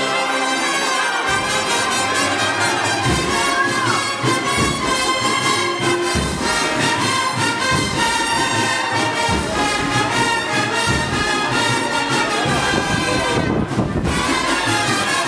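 Spanish agrupación musical, a brass and drum band, playing a Holy Week processional march: trumpets and trombones carry the melody over drums.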